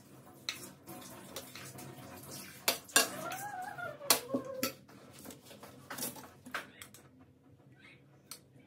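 A spoon clinking and scraping against a steel pot and plate as curry and rice are served, with scattered sharp clinks, the loudest about three and four seconds in.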